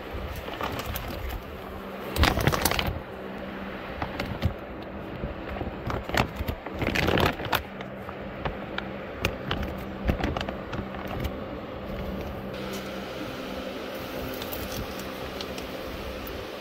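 Plastic shipping bags crinkling and rustling as gloved hands open and handle them, with loud bursts of crackling about two seconds in and again around seven seconds, over a steady background hum.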